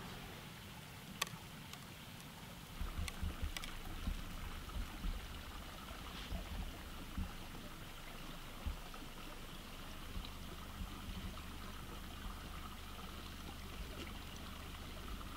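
Small woodland stream trickling steadily over stones, with a few faint clicks and soft low thumps in the first few seconds.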